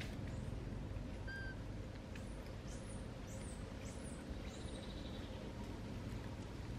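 A bird calling: a run of about five quick, high chirps over a little more than two seconds, with one short whistle-like note before them, over a steady low background rumble.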